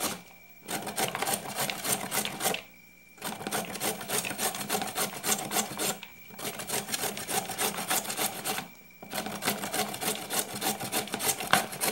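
A carrot is grated by hand on the coarse side of a flat metal grater, making quick scraping strokes several times a second. The runs of strokes are broken by short pauses about every three seconds.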